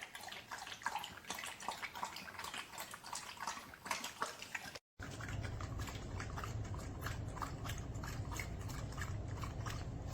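Water dripping and splashing in a pet drinking fountain. It is a loose patter of drops at first, then after a cut about five seconds in a denser, even run of drips over a low hum.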